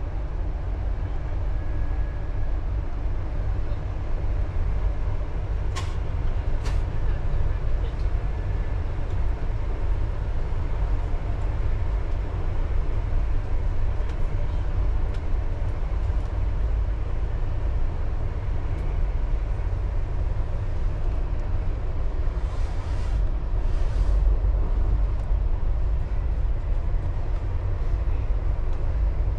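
Cabin noise inside a 500 series Shinkansen passenger car in motion: a steady low rumble. Two short sharp clicks come about six and seven seconds in, and two brief hisses later on.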